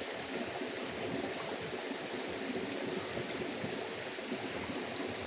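Shallow rocky river flowing: a steady, even rush of water running over and around the stones.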